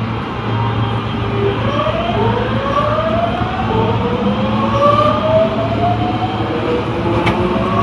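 Tanimachi Line subway car 22618 pulling away: its traction motor and inverter give a shrill whine in several tones that rise in pitch together as the train speeds up, over a steady low hum of the running train. A brief click near the end.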